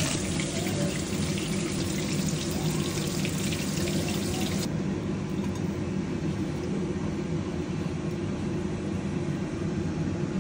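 Whole pomfret deep-frying in a pan of oil, sizzling and crackling; the sizzle cuts off abruptly a little before halfway, leaving a steady low hum.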